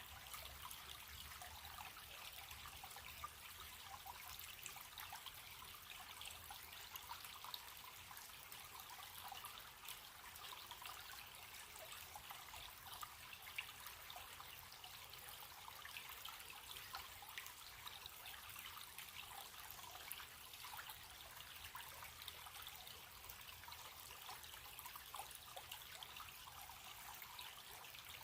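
Running stream trickling steadily: a continuous rush of water with many small splashes and gurgles.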